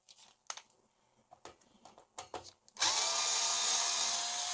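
A few light clicks and knocks of parts being handled, then about three seconds in a cordless power driver starts and runs steadily, its motor whine rising briefly and then holding as it undoes a screw.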